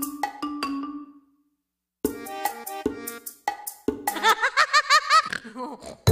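Music: a run of short staccato notes, a half-second pause, then more staccato notes and a quick run of wavering notes that dies away near the end.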